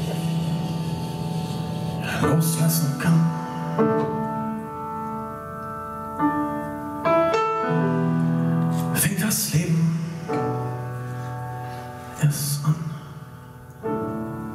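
Live band music led by a grand piano playing slow, held chords, with bass underneath and a few cymbal strikes.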